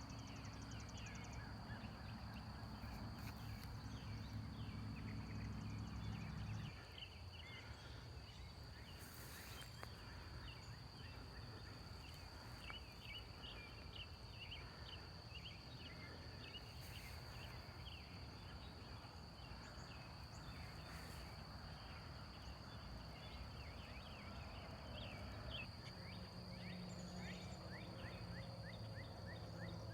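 Faint farmyard ambience: many short chirps over a steady high-pitched whine, with a low hum that stops about seven seconds in.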